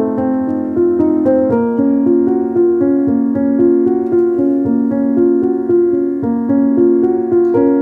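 Background piano music, a calm melody of held notes changing about every half second to a second.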